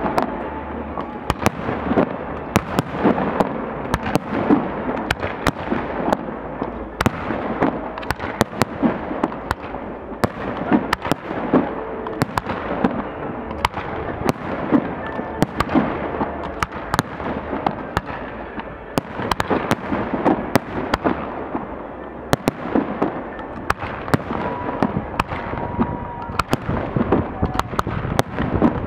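Fireworks display going off continuously: a dense, rapid run of shell bursts and crackling reports, many a second, over a steady rumble.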